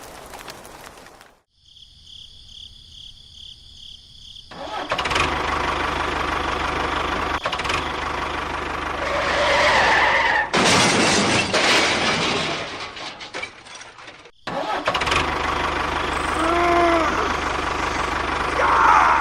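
Engine running in several abruptly cut segments, with a fast pulsing high beep a couple of seconds in and a louder, noisier stretch around the middle.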